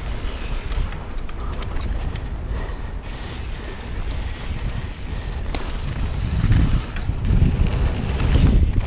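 Wind buffeting a helmet camera's microphone while a downhill mountain bike is ridden fast over dirt and gravel, with sharp rattles and clicks from the bike and the ground. The wind rumble grows heavier in gusts over the last few seconds.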